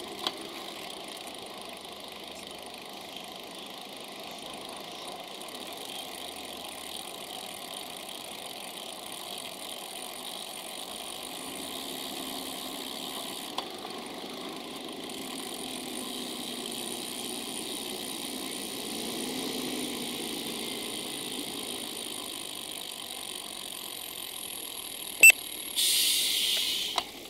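Steady road traffic noise heard from a camera on a moving bicycle, with motor vehicles, including a bus, passing in the adjacent lanes and swelling for a few seconds past the middle. A single sharp click comes near the end, followed by a short burst of hiss.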